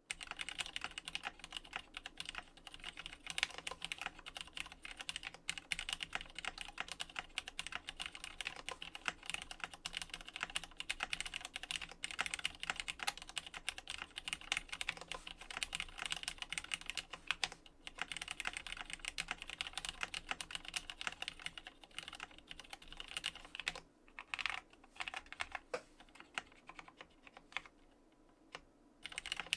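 Typing on a JER-A06 custom mechanical keyboard: plateless with a top-mounted PCB, retooled Cherry MX Black linear switches with lubed stems and springs, and GMK Dolch keycaps. A fast, steady run of keystrokes, with a short lull and a few sparse presses near the end.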